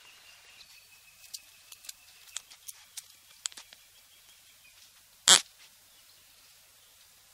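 An animal makes one short, loud sound about five seconds in, over faint scattered clicks.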